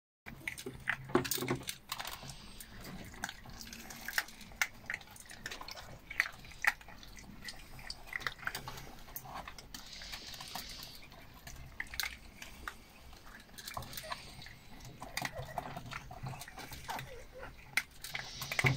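Prague Ratter puppies eating dry kibble from a stainless steel bowl: irregular crunching and small clicks of kibble and teeth against the metal.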